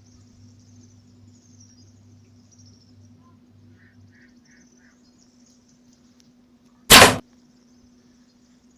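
A single sharp shot from a hunting bow, the string's thwack about seven seconds in, over a steady chorus of crickets.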